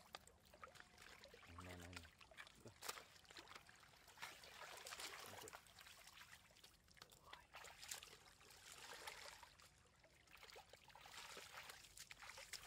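Faint sloshing and trickling of muddy water, with scattered small splashes and clicks, as hands and plastic baskets work in shallow mud.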